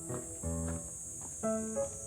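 Background music: a simple melody of held notes changing about every half second, over a steady high-pitched hiss.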